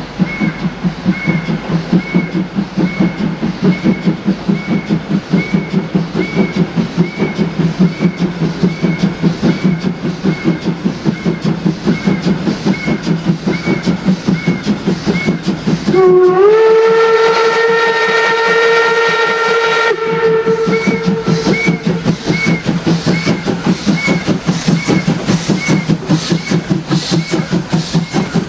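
DB class 64 steam tank locomotive 64 419 hauling its train, its exhaust chuffing in fast, even beats. About halfway through its chime steam whistle blows one long blast of several tones that slides up in pitch at the start and holds for about five seconds.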